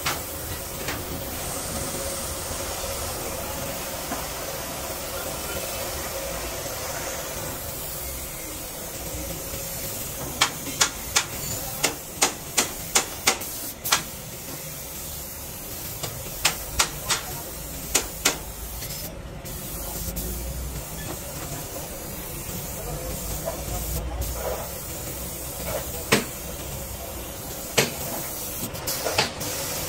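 Gravity-feed spray gun hissing steadily as compressed air atomises paint onto a truck's bodywork, with a faint steady tone underneath. Sharp clicks come in quick runs around the middle and a few more near the end.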